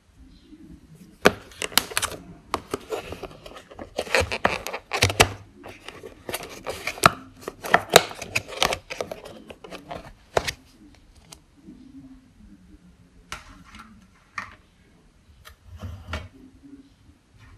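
Thin clear plastic lid of a takeaway food bowl being pried at and pulled off by hand: rapid crackling with many sharp clicks for about ten seconds, then a few scattered crinkles.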